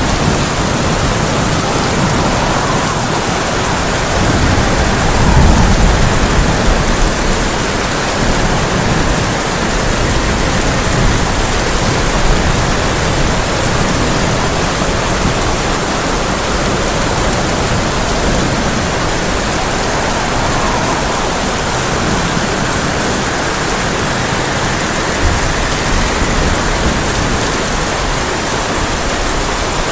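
Heavy rain falling steadily on a tin roof, with a low rumble of thunder swelling about five seconds in.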